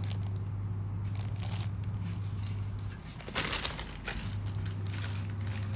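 A steady low electrical hum that breaks off for about a second near the middle and then comes back, with light crinkling and clicking handling noises over it.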